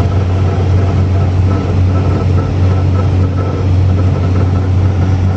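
Road and engine noise inside a 1996 Fiat Uno above 100 km/h: a loud, steady low drone with a faint high whine that comes and goes. This is the strange noise the owner reports appearing only above 100 km/h.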